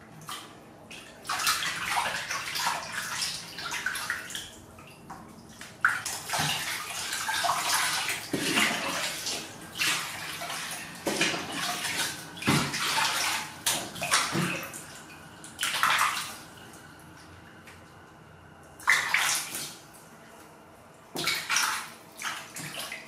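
Water sloshing and splashing in a plastic basin as hands wash a kitten, rubbing it down in the water. It comes in irregular bursts, some brief and some lasting several seconds, with short quieter pauses between them.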